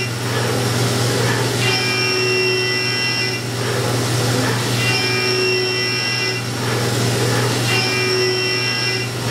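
CNC milling machine cutting a metal block with flood coolant spraying, over a steady low hum. A high whining tone from the cutter comes and goes in stretches of about a second and a half, roughly every three seconds, between stretches of hissing spray.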